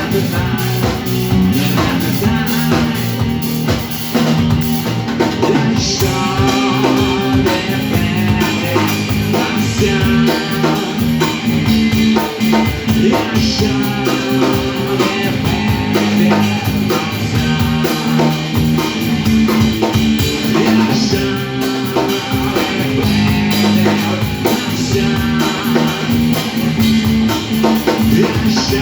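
Rock music with a drum kit and guitar playing a steady beat.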